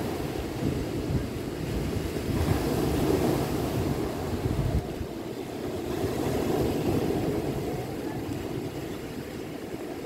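Ocean surf breaking and washing onto a cobblestone beach, swelling louder twice, with wind rumbling on the microphone.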